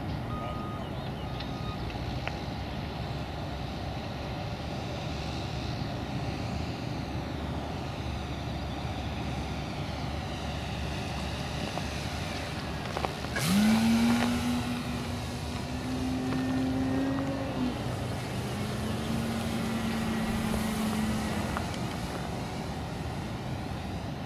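Electric RC Yak 54 aerobatic plane's motor and propeller: a faint drone over steady background noise, then about halfway a louder pitched propeller hum comes in suddenly, rising briefly and holding for a few seconds as the plane makes a low pass. After that comes a slightly lower hum that fades away.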